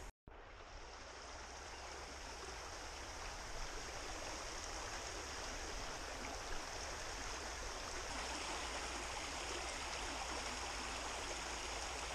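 Small stream running over rocks and shallow riffles: a steady rush of water.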